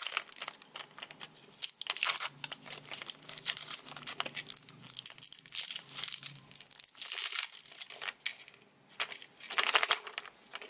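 Wrapper of a surprise egg being unwrapped by hand: dense crinkling and tearing, in uneven flurries that are loudest about seven and nine to ten seconds in.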